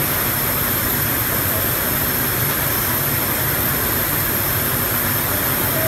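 Steady, loud drone of factory machinery on an overhead conveyor production line for hinge parts, with a low hum underneath.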